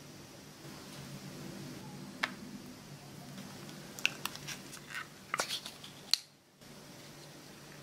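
A few sharp clicks and crinkles, clustered about four to six seconds in, as a plastic portion cup of coffee creamer is handled and its foil lid peeled back, over a low steady hum. The sound cuts out briefly just after the last click.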